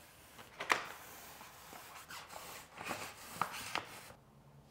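Sheet of Avery Dennison gloss vinyl wrap and its paper backing liner rustling and crinkling as it is handled and peeled. There are a few sharp crackles, about a second in and again around three seconds in.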